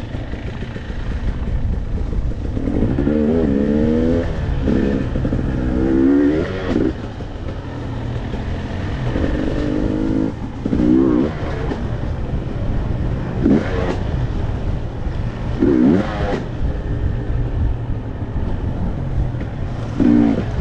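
Dirt bike engine under way on a trail, revved in repeated short bursts as the throttle is worked, its pitch rising and falling every two to three seconds over a steady low rumble.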